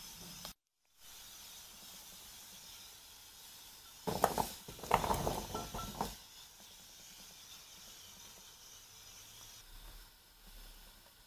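Rice cakes tipped from a bowl into a frying pan of simmering sauce: a burst of clattering, clinks and splashing lasting about two seconds, a few seconds in, over a steady low hiss from the pan.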